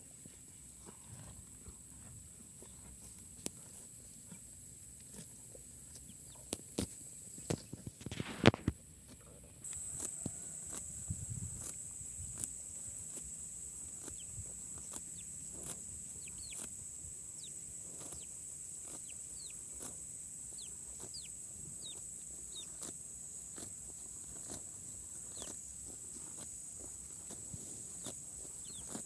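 Cows grazing, tearing and chewing grass in irregular crunching clicks, with a short louder noise about eight seconds in. A steady high whine comes in about ten seconds in, and faint short bird chirps are heard through the second half.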